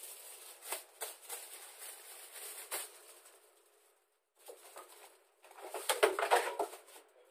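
Aluminium foil and plastic bags rustling and crinkling as they are handled, in irregular bursts. The loudest burst comes near the end, with a few dull knocks.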